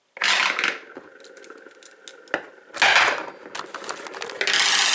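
Metal padlock being spun by hand and rattling against the counter as it fails to keep spinning. There are three bursts of metallic clatter, the last lasting about a second, with a fainter rattle between them.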